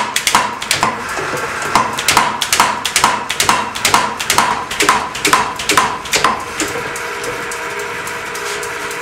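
25 kg ABNO spring power hammer running, its ram striking about three blows a second, each with a short metallic ring. About six and a half seconds in the blows stop and the belt-driven electric motor keeps running with a steady hum.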